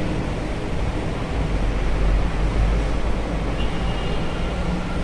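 Steady rushing background noise with a low rumble underneath, even throughout, with no distinct events.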